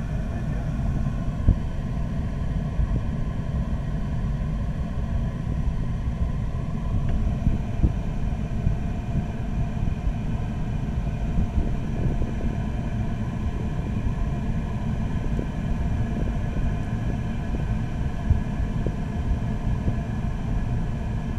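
Steady low rush of air flowing over a glider's canopy, heard from inside the cockpit, with no engine. A few brief crackles stand out, a flaw in the recording.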